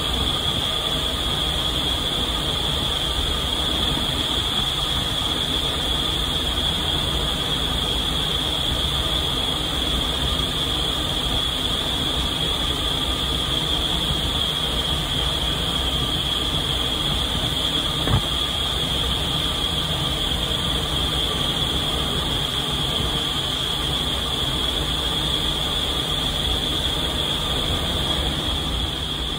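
Indoor skydiving wind tunnel running: a loud, steady rush of air with a constant high whine over it. A single short knock about 18 seconds in.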